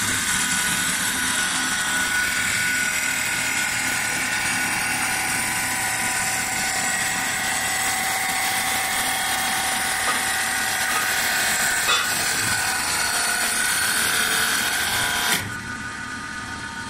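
A CNC wood lathe cutting a spinning wooden spindle gives a steady, loud, high-pitched cutting noise with a whine through it. The noise stops about a second and a half before the end, leaving a quieter machine sound.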